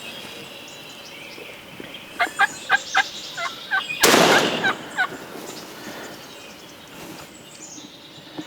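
A wild turkey gobble, a quick rattling run of notes about two seconds in. About four seconds in comes a single loud shotgun blast from a Savage 220 20-gauge turkey gun, the loudest sound here, fading over about a second, with a few more gobble notes just after it.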